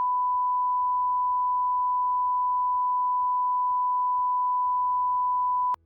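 Steady 1 kHz sine-wave calibration tone from an EA60 public-address amplifier, played through a small 1-watt speaker. It cuts off abruptly with a click near the end.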